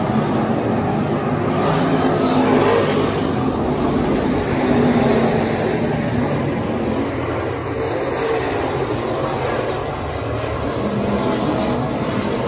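Stock-class race car engines running at speed around the track, a steady loud engine noise whose pitch rises and falls.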